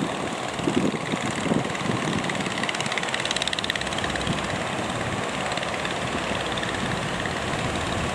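Fishing boat engine running under a steady rush of surf and wind, with its rapid engine beat coming through most clearly about three seconds in.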